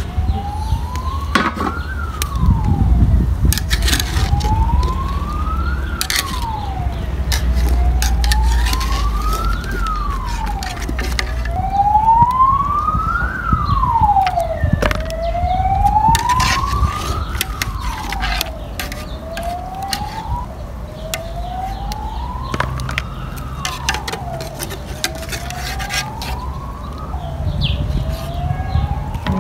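A wailing siren rising in pitch over about three seconds and falling back quickly, over and over. Scattered metal clinks from a pot lid and ladle and a low rumble sit underneath.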